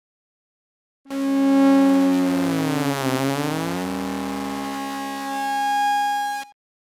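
Synthesized electronic sound effect: several steady tones with a sweep that falls and then rises again in pitch around the middle, starting about a second in and cutting off suddenly near the end.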